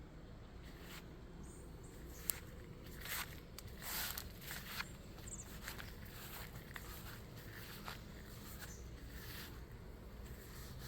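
Faint outdoor ambience of footsteps and rustling, strongest a few seconds in, with one sharp click about two seconds in and a couple of short high chirps.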